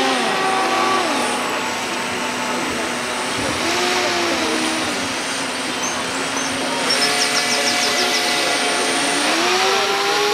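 A small model boat motor whining over a steady rushing noise, its pitch dropping, rising and falling again a few times as the throttle changes.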